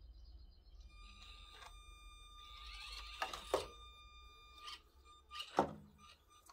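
Axial SCX24 micro RC crawler's small electric drive whining at a steady pitch as it crawls, with several knocks of its tyres and chassis against the plastic RC car body it is climbing off. The loudest knock comes near the end.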